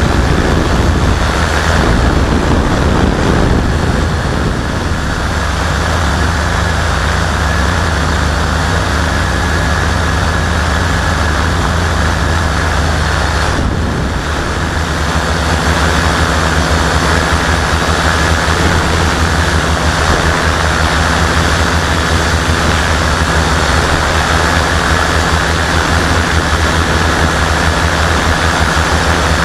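Quadcopter's four RC Timer 5010 360 KV brushless motors spinning 17x5 carbon-fibre propellers in steady flight, a constant low hum with rushing air, picked up close by the camera on board. The sound dips briefly about halfway through.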